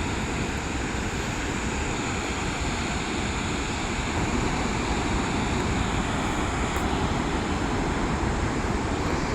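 Waterfall roaring: a steady, unbroken rush of falling water.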